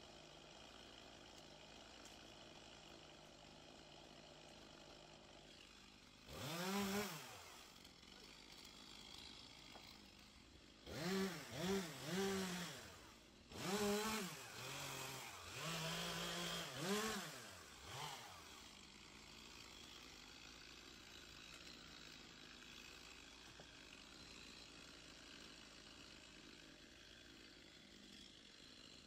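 Chainsaw revved in short bursts, the engine pitch rising and falling with each squeeze of the throttle: one burst about six seconds in, then a run of quick revs over the next several seconds.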